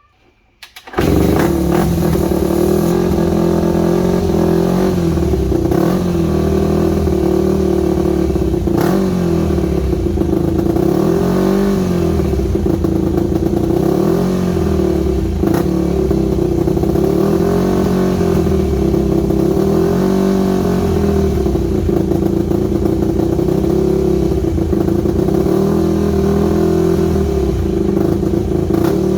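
Yamaha WR250 single-cylinder four-stroke dirt bike engine running through an aftermarket stainless exhaust, its revs rising and falling every couple of seconds as the throttle is worked. The engine is running again after a no-start, with the choke off. The sound cuts in abruptly about a second in.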